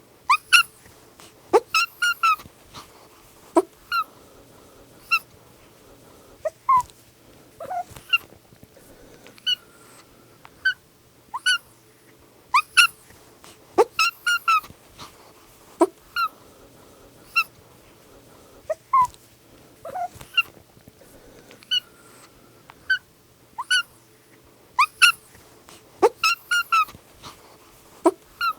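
Two-month-old kitten mewing over and over in short, high-pitched calls, often in quick runs of two or three. A faint steady hum sits underneath.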